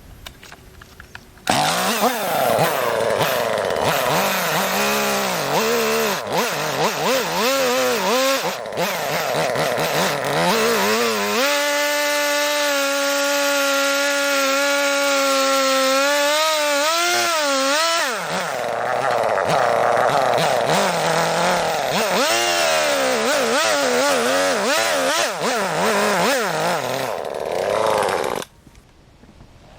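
Chainsaw with a freshly hand-ground chain cutting into a log, its engine pitch rising and falling under load, with a steadier stretch in the middle. It starts suddenly a second and a half in and cuts off just before the end.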